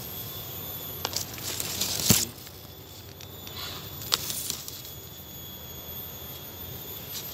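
Dry bamboo leaves and stems crackling and rustling as someone pushes through a bamboo clump, with a sharp snap about two seconds in and a few more crackles a couple of seconds later.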